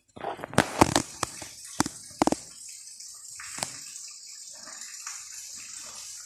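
Kittens' paws knocking and scrabbling against a glass pane and its aluminium frame: a string of sharp taps and thumps, thickest in the first couple of seconds, over a steady hiss.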